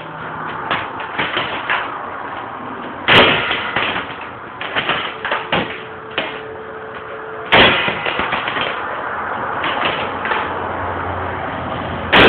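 Electric airsoft AK-47 firing single shots: three sharp cracks about four and a half seconds apart, the last near the end, with smaller clicks and rattles of handling between them.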